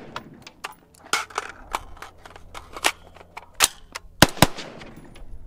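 Cobalt Kinetics TEAM AR-15 rifle fired in single shots at an uneven pace, about half a dozen sharp reports. The loudest two come in quick succession a little past four seconds in.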